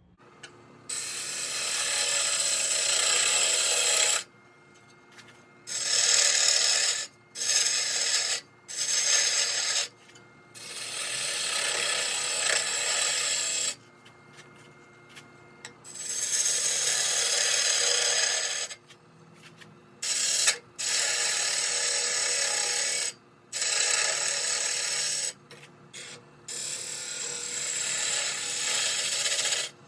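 Wood lathe spinning a goncalo alves (tigerwood) shift-knob blank while a turning tool cuts it. There are about ten hissing cuts of one to four seconds each, separated by short pauses in which only the lathe's faint steady hum is left.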